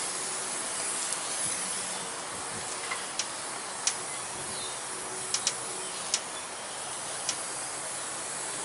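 Compressed air hissing steadily through a straight air chuck held on the valve stem of a small tubeless lawnmower tire as it is aired up, with a few short sharp clicks along the way.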